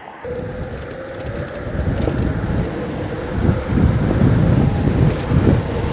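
Wind rushing over the microphone, growing louder as the 72-volt Onyx RCR electric moped accelerates hard, with a faint steady whine from its motor over the first few seconds.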